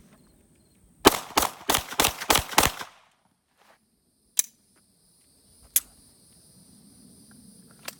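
Six rapid pistol shots from a 9 mm Glock 17C, about a third of a second apart, starting about a second in. Three single sharp clicks follow later, well spaced.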